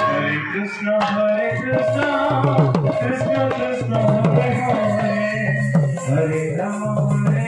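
Kirtan music led by a two-headed barrel drum (mridanga/khol) played with deep bass strokes that bend down in pitch, over held melodic tones and a high, evenly repeating metallic shimmer.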